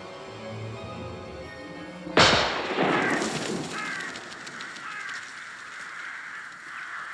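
Music cut off about two seconds in by a single gunshot that echoes away: the off-screen shot with which Van Gogh takes his life. Crows then caw as the flock flies up from the field.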